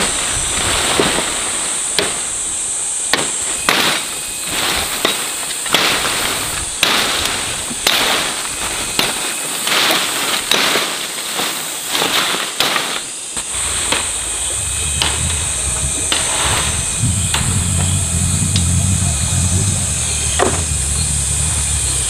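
Irregular sharp chopping strikes, roughly one a second, over a steady high buzz of insects. About fourteen seconds in the strikes thin out and a small engine starts running low and steady.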